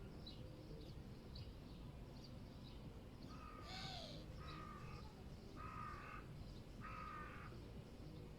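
A crow cawing four times in a row, harsh and rough, starting a little over three seconds in. Faint high chirps from small birds come and go over a steady low city rumble.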